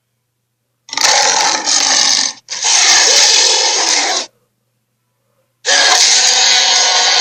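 Fantasy creature sound effects: three harsh, hissing creature cries, each between one and a half and about two and a half seconds long, separated by dead silence.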